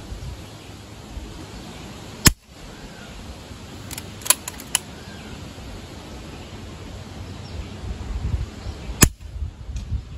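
Two shots from an Umarex Notos PCP air rifle fitted with a moderator, each a single sharp crack, about seven seconds apart. A few light clicks come about two seconds after the first shot.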